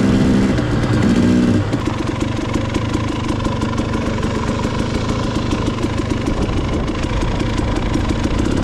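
Two-stroke dirt bike engine running under throttle, then dropping about a second and a half in to a lower, choppy off-throttle note as the bike rolls on.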